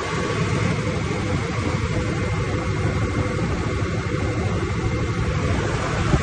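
Perkins diesel engine of an 800 kVA FG Wilson generator set running steadily, a dense low rumble with a faint steady high tone over it.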